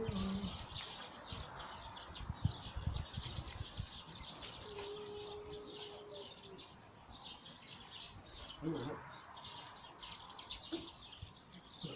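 Small birds chirping busily and continuously, with some low thumps in the first few seconds and a steady hum-like tone held for about two seconds midway.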